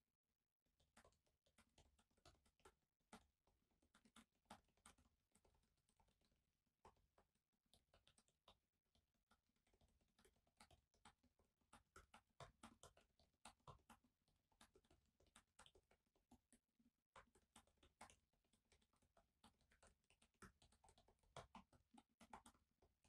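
Faint typing on a laptop keyboard: quick, irregular key clicks in bursts, with a short pause about three quarters of the way through.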